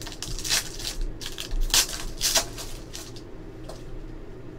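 Foil trading-card pack wrapper crinkling as it is opened, a string of short rustles over the first two and a half seconds, then fainter rustling as the cards are handled.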